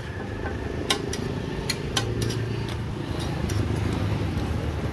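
Sharp clicks and taps of a wooden press and utensils on a large steel paratha griddle, about eight over a few seconds, over a steady low rumble.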